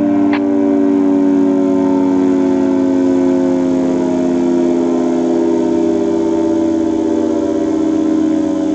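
Federal Signal 3T22 outdoor warning siren sounding a steady alert, its three-tone chord held with a gently wavering level and a slight fall in pitch.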